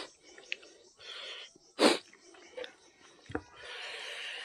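A man eating spicy king chilli curry by hand, breathing noisily in and out through the mouth between bites, with small wet mouth clicks. A short, loud burst of breath comes about two seconds in.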